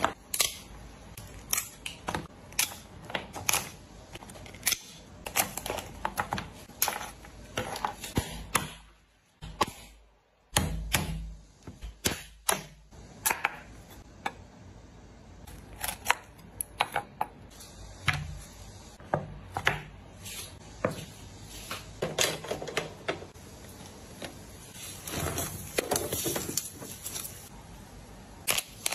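Kitchen shears and a knife cutting through crab shell and legs on a plastic cutting board: a long run of sharp, irregular clicks and crunches, with a short break about ten seconds in.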